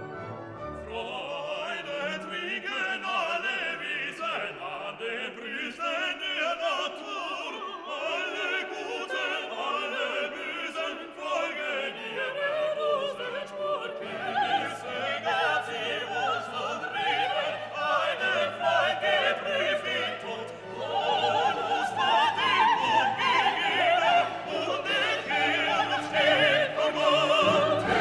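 Background classical music: an orchestra with operatic singing, growing louder about two-thirds of the way through.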